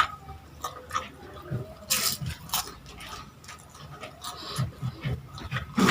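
Close-up eating sounds: chewing and wet mouth noises, with a few sharp crunches and clicks, from someone eating ham and lumpia Shanghai (fried spring rolls).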